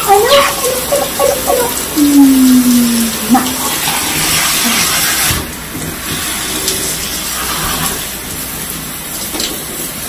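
Shower spray running steadily, water hissing and splashing onto skin and tile. A woman's voice sounds briefly in the first three seconds, ending in one low falling tone.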